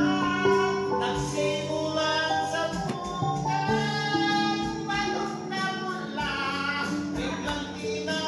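Music playing, with a singing voice.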